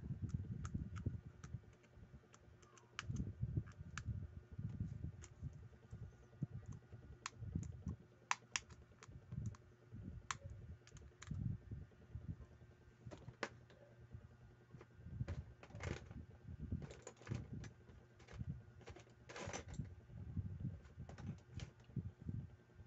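Irregular light clicks and taps of metal parts of a Daiwa World Spin 4000 spinning reel and small tools being handled during assembly, with soft handling bumps between them.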